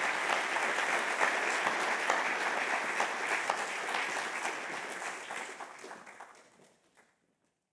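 Audience applauding: many hands clapping, steady at first and then fading away over the last few seconds.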